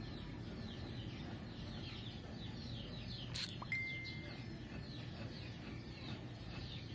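Birds chirping in the background, many quick falling chirps in close succession, over a low steady hum. A single sharp click about halfway through, followed by a brief high steady tone.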